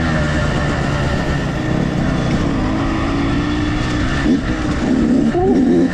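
Dirt bike engine running under way on a trail, its pitch rising and falling a few times as the throttle is worked near the end.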